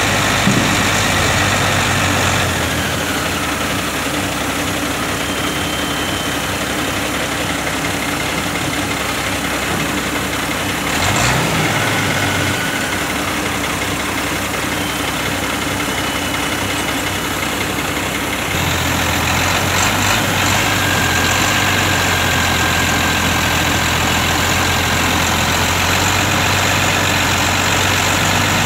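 Engine of a hydraulic pile-driving rig's power pack running steadily. Its note drops a little about two seconds in and picks up again about two-thirds of the way through, with a brief louder noise near the middle.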